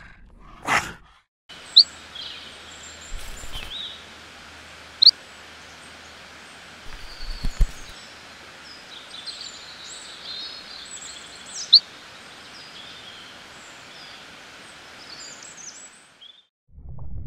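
Nature ambience: a steady background hiss with small birds chirping and tweeting throughout, a few sharp, loud chirps standing out. A brief sweeping sound comes right at the start, and a couple of soft low thumps come in the middle.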